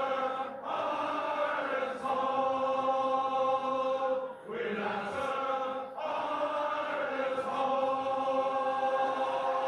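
Male voice choir, with the Irish players joining in, singing an Irish anthem: long held notes in phrases a couple of seconds long, with short breaths between them.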